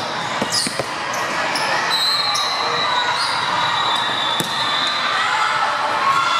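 Indoor volleyball gym: volleyballs being struck and bouncing on hardwood courts as scattered sharp smacks, with short high squeaks and a steady hubbub of voices echoing in the large hall.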